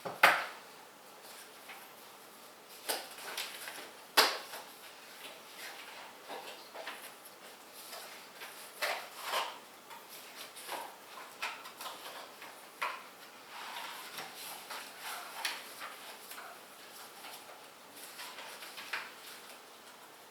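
Scattered clicks, taps and light rustling of hands handling small plastic PC parts and packaging, with a sharp click near the start and another about four seconds in.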